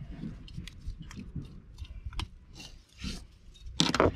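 A webbing strap and buckle holding a Campingaz gas bottle being released by hand: small clicks and rubbing, then a louder rasp shortly before the end.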